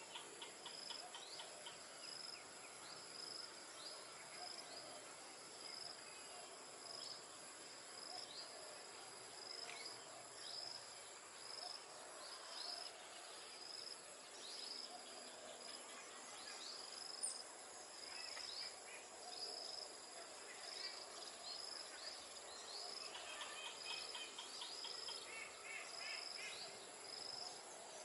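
Outdoor insect and bird sounds: a steady high insect trill runs under a high chirp repeated roughly once a second, with bursts of rapid chirping about three-quarters of the way through.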